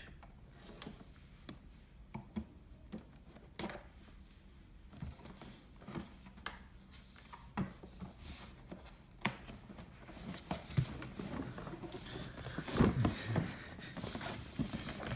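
Small pocket knife slitting the tape seals of a cardboard box: scattered scratches and sharp clicks of the blade on the cardboard. It grows busier and louder in the last few seconds, with hands rubbing and pressing on the box.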